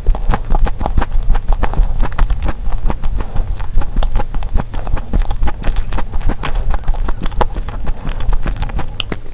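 Close-miked chewing of a thick sandwich cookie with the mouth closed: a quick, uneven run of small wet clicks and soft crunches over a steady low rumble.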